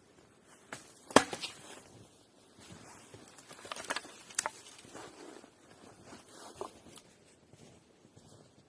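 A series of sharp cracks and knocks at uneven intervals: the loudest about a second in, a quick cluster around four seconds, and fainter ones after.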